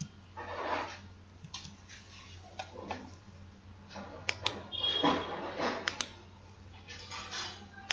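A few sharp computer mouse clicks amid soft rustling, over a steady low hum.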